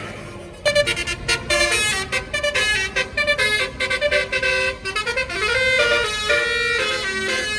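Bus 'telolet basuri' melody horn playing a rapid tune of short stepped notes, starting suddenly about half a second in.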